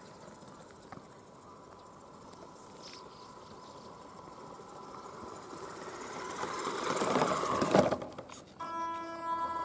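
DEERC 9200E radio-controlled monster truck's electric motor and drivetrain whining as it drives. It is faint at first, grows much louder as the truck comes right up close about seven to eight seconds in, and settles into a steady pitched whine near the end.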